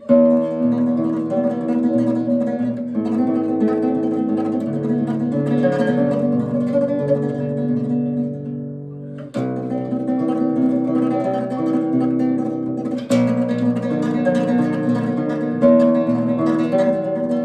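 Nylon-string guitar played in classical tremolo: a thumb bass note followed by the same treble note picked rapidly three times, four notes to each cycle, so the melody sounds held over the bass. The phrase breaks briefly and starts again about nine seconds in.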